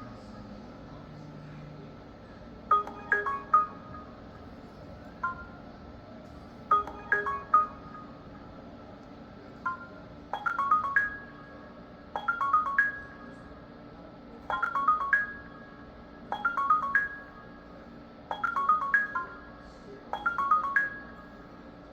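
Samsung RF4289HARS refrigerator's electronic control panel chiming during its diagnostic test mode: groups of quick, high, melodic beeps every two to four seconds, coming more often after about ten seconds, over a low steady hum.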